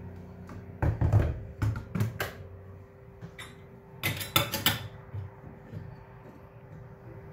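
Metallic clinks and clatter of a stainless steel gooseneck pour-over kettle being handled and its lid fitted, in two bursts, about a second in and about four seconds in, over a faint steady hum.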